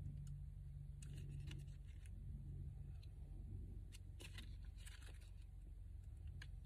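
Paper pages being leafed through by hand: soft rustles and flicks in short clusters, over a steady low hum.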